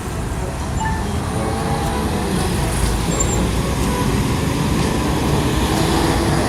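Bus engine running amid traffic noise: a steady low rumble, with a faint tone rising slowly near the end.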